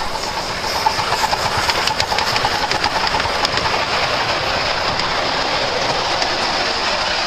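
Miniature live-steam locomotive pulling away with a train of ride-on passenger cars: a steady hiss of steam and exhaust, with repeated sharp clicks from the wheels on the rails, most dense in the first few seconds.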